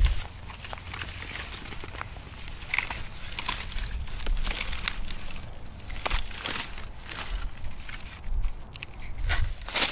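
Dry leaves of a dead desert agave crackling and snapping as a hand reaches in and handles them: a continuous scatter of sharp, crisp clicks.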